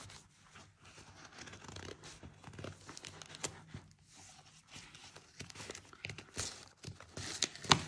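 Steel scissors cutting through the thin card of a book's cover strip along the spine, with crunching and crinkling of the folded paper pages. The cuts come as an uneven series of crisp snips, louder near the end.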